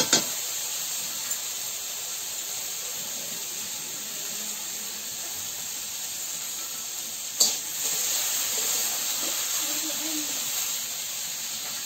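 Food sizzling steadily as it fries in a steel wok, with a sharp clink of metal on the pan about seven seconds in.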